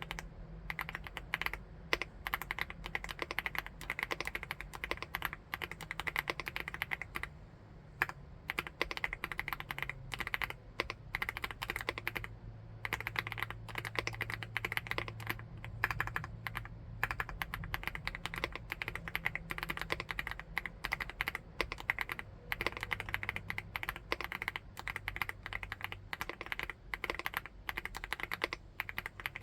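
Continuous, fast, irregular typing on a 75%-layout keyboard with a full aluminium case: a dense stream of key clicks.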